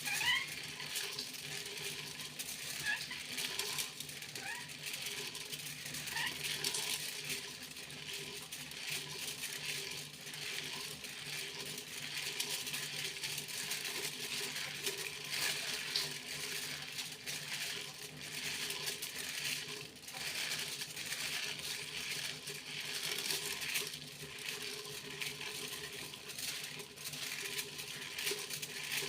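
Foil being crinkled and rustled: a dense, continuous crackle of small clicks. A few short rising squeaks come in the first several seconds.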